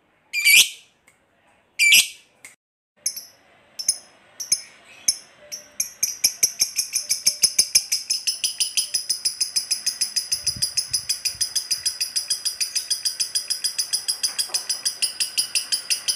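Masked lovebird calling: a few sharp single shrieks, then from about six seconds in a long, fast, even chattering trill of about six notes a second. This is the 'ngekek panjang' long trill of a lovebird in full song.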